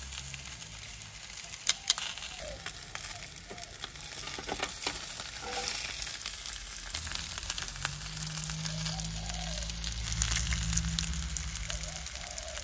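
Sausages sizzling and crackling on a barbecue hot plate, with two sharp clicks about two seconds in and a low hum coming in about halfway.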